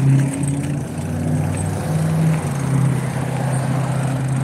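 Steady hum and rush of motor traffic on the road, picked up by a phone on a bicycle being ridden alongside it.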